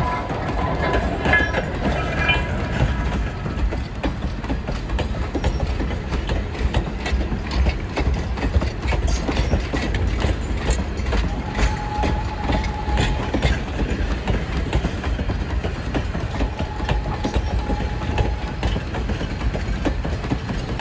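Passenger coaches rolling past close by, a steady low rumble with a rapid, irregular clicking of wheels over the rail joints. Two brief high squeals sound partway through, one in the middle and one later.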